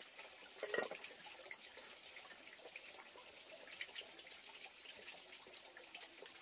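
A metal pot lid clanks once as it is set on the cooking pot, about a second in. Then small clicks of chopsticks against ceramic bowls over a faint steady hiss.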